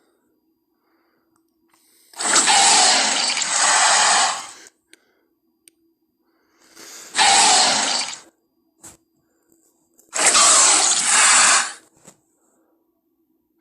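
Tyrannosaurus rex film sound effect: three separate hoarse, unpitched blasts with silence between them. The first is the longest, about three seconds in two swells, and the next two are shorter. A faint steady hum lies underneath.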